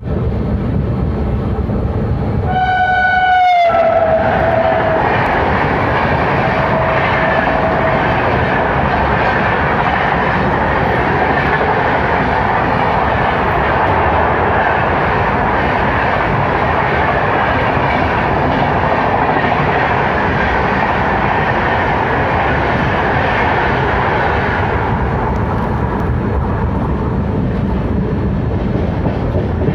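Indian Railways passenger trains running at speed, heard from an open coach door: a loud, steady rumble and rattle of wheels on rail, joined by the noise of a second train running alongside on the next track. About three seconds in, a train horn sounds for about a second, its pitch dropping as it passes. About 25 seconds in, the sharper noise of the adjacent train falls away.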